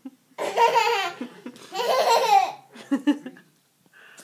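A young child laughing in two long bursts of about a second each, then a few shorter giggles.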